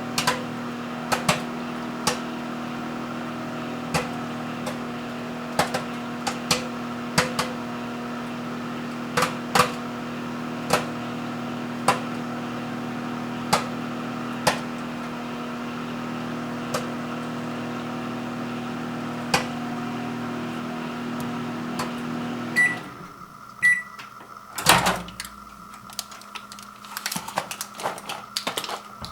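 Microwave oven running with a mini bag of butter microwave popcorn popping inside: a steady hum with sharp single pops a second or two apart, the popping nearly done. About 22 seconds in the hum stops, the microwave beeps twice, and a loud clunk follows as the door opens, then handling noise.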